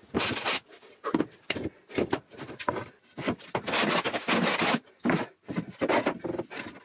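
Metal bench hand plane taking shavings off the face of birch plywood: a run of irregular planing strokes, mostly short, with one longer stroke about halfway through. The ply is being planed down by hand toward a marked taper line to expose its inner layers.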